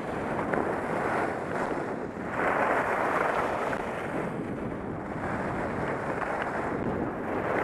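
Wind rushing over a helmet-mounted camera's microphone while skiing downhill, swelling and easing every couple of seconds.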